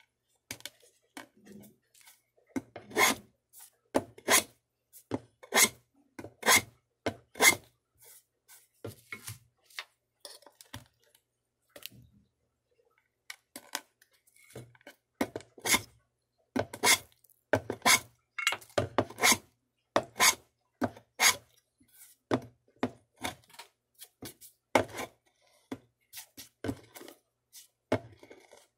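A hand tool scraping over small wooden kumiko strips in short strokes, about one to two a second, with a quieter stretch in the middle.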